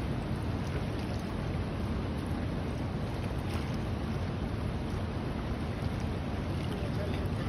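Fast-flowing river current rushing steadily, a constant noise of moving water.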